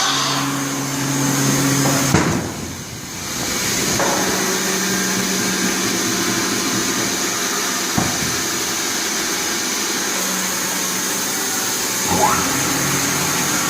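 Multi-blade rip saw machine running steadily, with a few short knocks and a brief dip in level a little after two seconds in.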